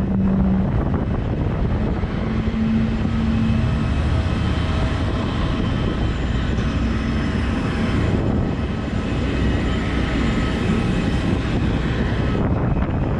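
Loud, steady jet aircraft engine noise that comes in abruptly at the start and holds at an even level, with a faint steady hum underneath.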